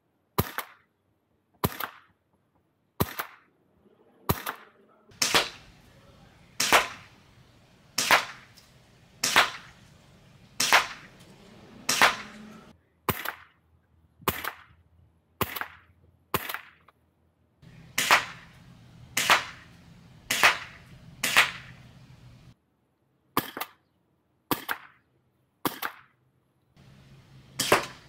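Wolverine MTW HPA airsoft rifle fired semi-automatically: a long string of single sharp cracks, about one every second and a quarter, with a couple of short pauses. The first shots are from the bare muzzle; partway through, the shots come through a four-prong replica flash hider.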